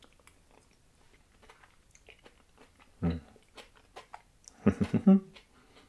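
A person tasting a spoonful of mango chutney: soft lip smacks and mouth clicks, with a short hum about three seconds in and a quick run of appreciative "mm" sounds near the end.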